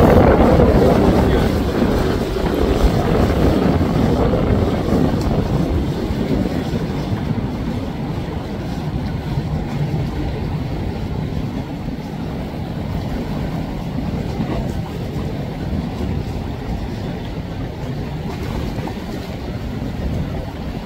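Motorboats passing on choppy water: engine noise and the rush of the hull's wash, loudest at the start and easing off over the first several seconds, with wind buffeting the microphone.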